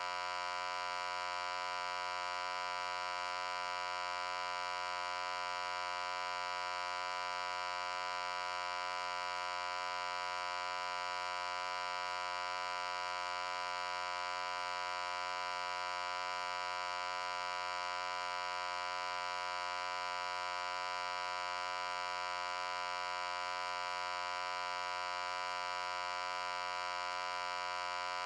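A steady electronic hum, one unchanging pitched tone rich in overtones that gives it a buzzy edge, running without a break.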